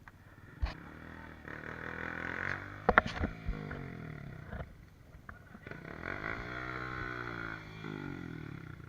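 Trail motorcycle engine revving, its pitch rising and falling repeatedly, with a few sharp knocks about three seconds in.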